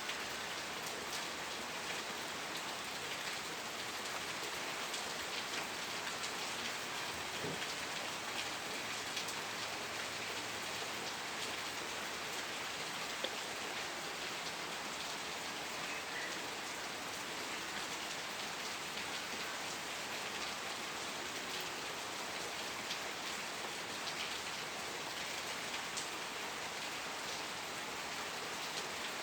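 Steady rain falling and pattering on a surface, many fine drop ticks in an even hiss, with one sharper drop about halfway through.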